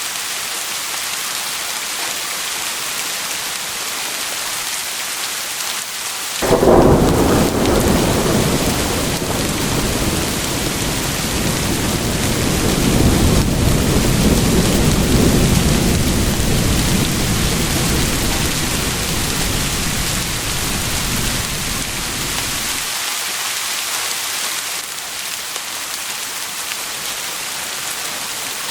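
Steady rain hiss. About a quarter of the way in, a sudden thunderclap breaks into a long rolling rumble that lasts about fifteen seconds and then stops abruptly, leaving the rain.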